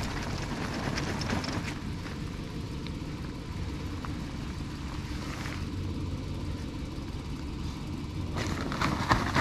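A steady low engine hum, with stretches of rustling in the first second and a half and again shortly before the end.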